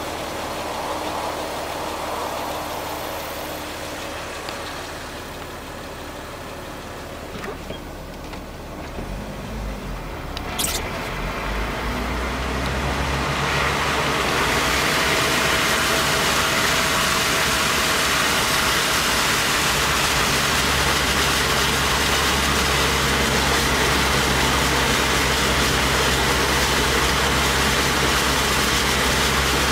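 Jeep Wrangler engine running as it drives through shallow water, with a rushing hiss of tyres and water. A little before halfway both grow louder and then hold steady.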